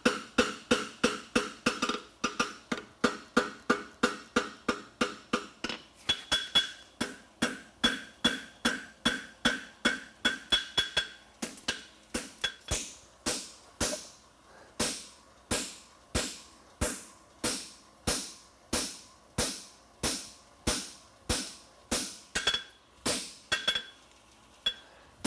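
Farrier's hammer striking a steel horseshoe on the anvil in a steady run of blows, about two to three a second, drawing the shoe out to lengthen it. The blows ring clearly through the first half, then turn duller.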